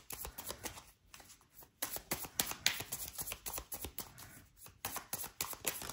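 A deck of tarot cards being shuffled by hand: a quick, uneven run of soft card slaps and flicks, with a brief lull about a second in.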